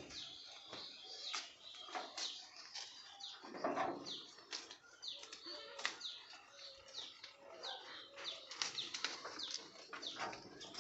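Small birds chirping over and over: many short, high calls that each drop quickly in pitch, with a louder, lower sound about four seconds in.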